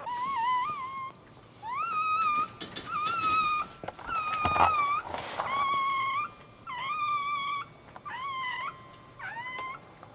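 Newborn dachshund puppy crying: about eight high, thin squeals in a row, each under a second long, some wavering or sliding up in pitch.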